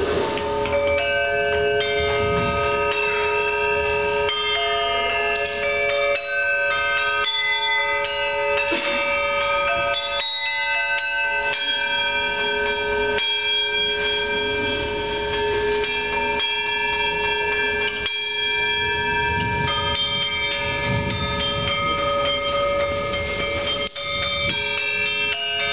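Small hanging gongs struck with mallets, each note ringing on so that several tones overlap in a steady bell-like wash, with fresh strikes coming in every few seconds.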